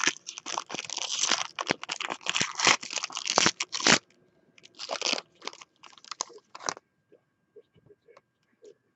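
Foil wrapper of a 2016 Leaf Origins football card pack being torn open and crinkled by hand, a dense run of crinkling for about four seconds, then a few shorter crinkles, settling into faint rustles near the end.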